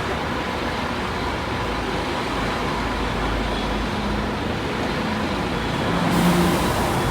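Buses and road traffic running at a busy bus stop: a steady engine rumble and tyre noise, with a short hiss near the end.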